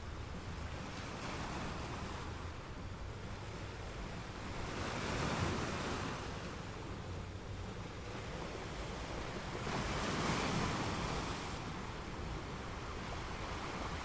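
Rough sea surf: a steady rush of breaking waves, with two louder surges about five and ten seconds in.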